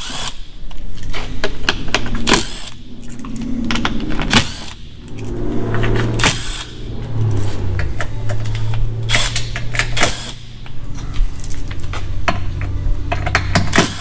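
Cordless driver with a T25 Torx bit backing out the screws of a car's plastic underbody belly pan, in short runs of rapid mechanical clicking with a longer steady motor run in the middle, and sharp clicks and knocks between runs.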